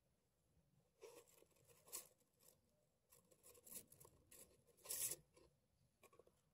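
Faint rustling and crackling of dry leaf litter and soil as released shrews scurry about: a loose string of short scratchy crackles, loudest about five seconds in.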